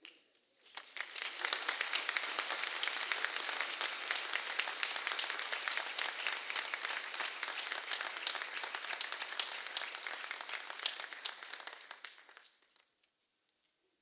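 A large audience applauding: dense clapping that swells up about a second in, holds steady, and dies away shortly before the end.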